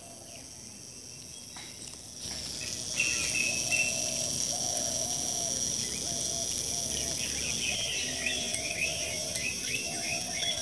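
Outdoor ambience of birds chirping and insects trilling steadily; it gets louder about two seconds in, and the bird chirps grow busier in the second half.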